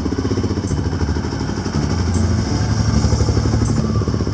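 Kawasaki KLR dual-sport motorcycle's single-cylinder engine running as the bike rides along, with a rapid low pulsing from the firing strokes.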